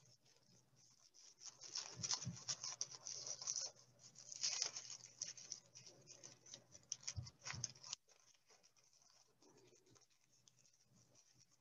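Tissue paper crinkling and rustling as fingers pull its layers apart around a pipe-cleaner stem, with a few soft thumps of handling. The rustling stops about eight seconds in.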